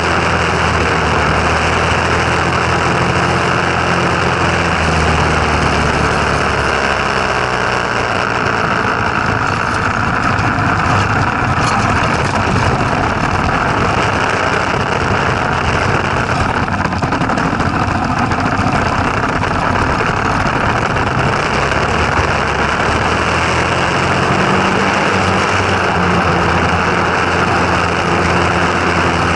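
Go-kart's Tecumseh small engine running: a steady low engine note, then from about six seconds in it turns rougher and noisier, as when revved up and under way, for about a quarter of a minute, before settling back to a steady low note near the end.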